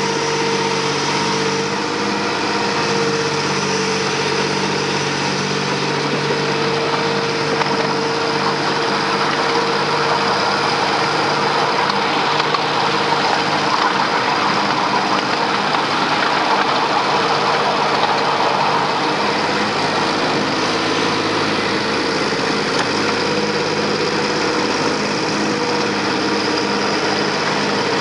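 Engine of a 7¼ inch gauge miniature GP40 diesel-outline locomotive running steadily as it hauls the train, with a rushing noise of wheels on track that swells in the middle.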